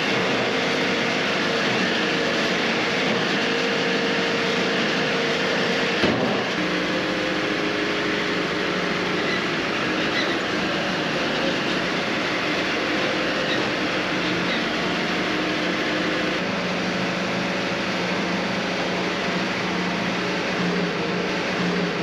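Wood-Mizer LT70 bandmill sawmill running steadily, its motor and band blade working a log. There is a short click about six seconds in, after which the hum settles at a lower pitch.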